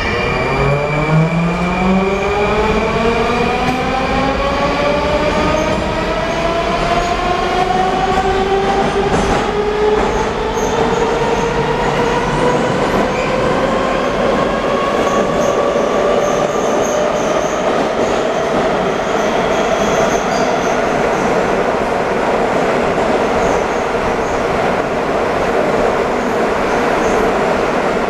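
An 81-740 Rusich metro train pulls away from the platform. Its traction drive whines, the whine rising steadily in pitch as the train gathers speed and levelling off about twenty seconds in, over a steady running rumble of wheels and tunnel.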